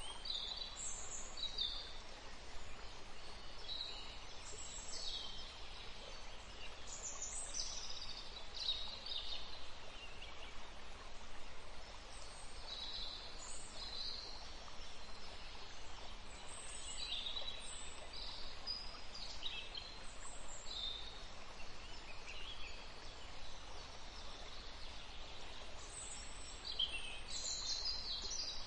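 Forest ambience: many short, high-pitched bird chirps, each falling in pitch, repeating every second or so over a steady background hiss.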